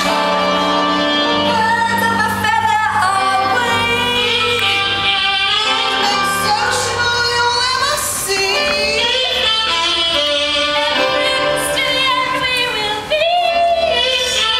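Women singing a musical-theatre number over instrumental accompaniment.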